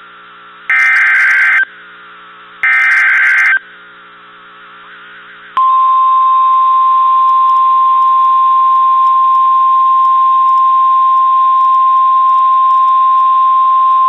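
NOAA Weather Radio alert tones: the last two of the three SAME data-header bursts, each about a second long and a second apart, then after a short pause the steady 1050 Hz warning alarm tone held for about nine seconds. Together they signal a severe thunderstorm warning.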